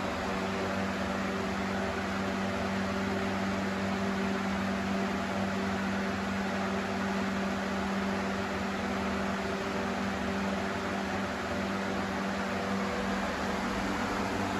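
Lasko 3733 20-inch box fan running on high speed: a steady rush of air with a constant motor hum.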